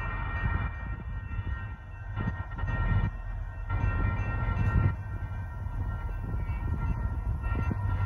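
Approaching Union Pacific freight train led by an EMD SD70ACe-T4 locomotive, its low diesel rumble growing louder near the end. Steady high ringing tones from the active crossing's warning bells run over it.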